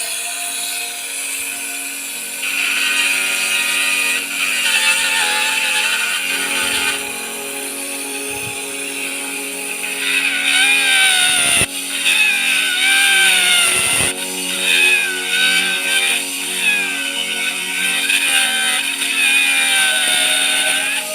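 Small handheld power tool motor, such as a rotary tool or mini drill, running continuously with its whine wavering and dipping as it bites into the workpiece, louder in the second half. Two short knocks partway through.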